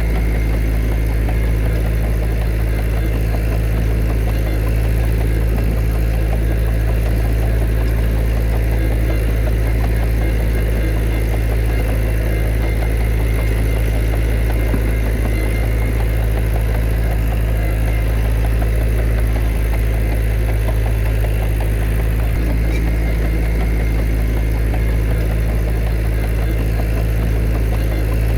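Heavy earthmoving machine's diesel engine running steadily as a low, even drone, with no rise or fall in speed.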